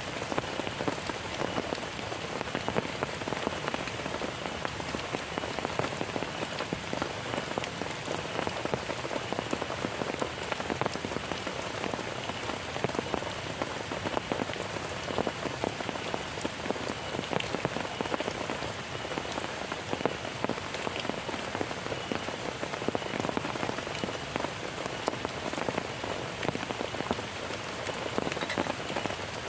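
Heavy rain falling steadily, with many separate drops striking close by.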